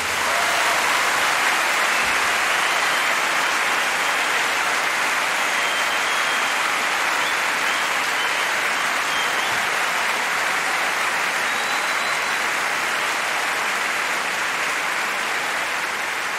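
An audience applauding, steady and sustained.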